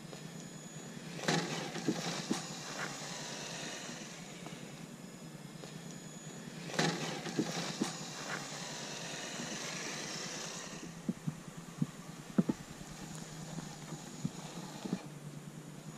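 Traxxas TRX-4 RC crawler driving over dirt and roots: a steady whine from its small electric motor and gearbox. Scattered knocks and clatter come as the tyres and chassis climb, in clusters about a second in, around seven seconds in, and several more near the end.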